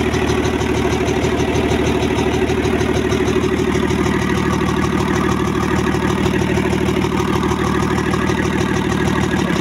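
Used diesel engine, out of its vehicle and sitting loose on the floor, running at a steady idle.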